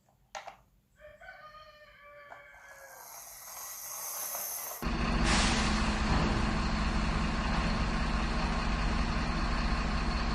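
A rooster-like crowing call, swelling over a few seconds. About five seconds in, a loud, steady, truck-like engine rumble with a low hum starts suddenly and runs on.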